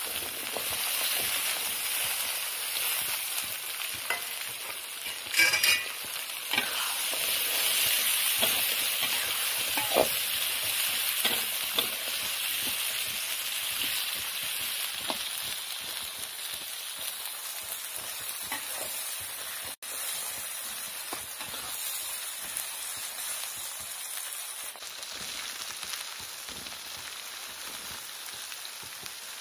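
Chili paste and green chilies sizzling in hot oil in a pan, stir-fried with a metal spatula that knocks and scrapes against the pan now and then. The sizzle is steady, with a louder cluster of knocks a few seconds in.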